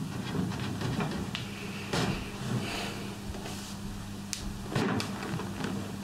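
Elm rail being worked by hand into its joint in a table leg: wood rubbing and scraping as it seats, with a few sharp wooden knocks, about two seconds in and twice more towards the end.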